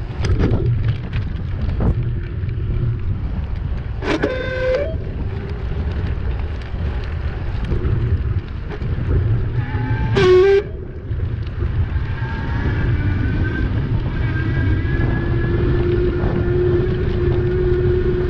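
Wind buffeting the microphone of a handlebar camera on a moving e-bike, a steady low rumble. Two short pitched toots or squeals cut through about 4 and 10 seconds in, and a steady whine sets in about 12 seconds in.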